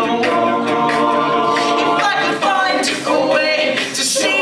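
A cappella vocal group singing sustained chords in close harmony.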